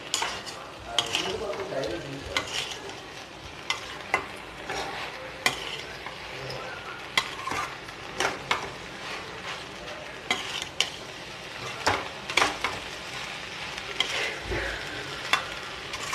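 A metal spoon stirring and scraping fried cauliflower, onions and sauce in a stainless steel kadai, clinking against the pan at irregular intervals over a steady sizzle. The cauliflower Manchurian is being sautéed until it heats through.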